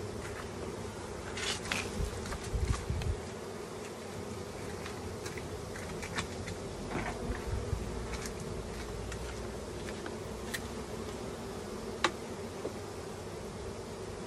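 Honeybees buzzing in a steady hum around an open hive. Scattered clicks and knocks come over it, a cluster between about one and a half and three seconds in and a sharp single click about twelve seconds in.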